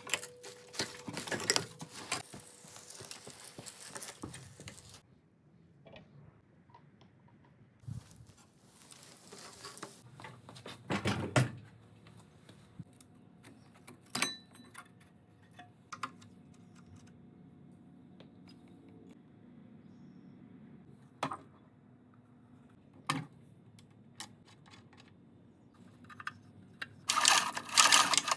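Scattered metallic clicks, clatters and rattles of tools and parts being handled during hands-on work, with a louder burst of rattling about eleven seconds in and again near the end.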